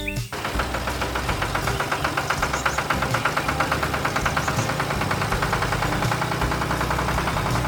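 Tractor engine running steadily with a fast, even beat, starting abruptly just after the start.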